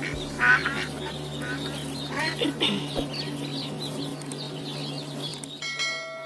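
Duck quacking, a run of short calls, the loudest about half a second in and again around two and a half seconds in.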